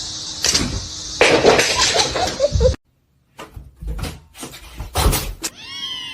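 Knocks and clattering, cut off suddenly partway through, then more sharp knocks; near the end a domestic cat starts meowing with a long, wavering call.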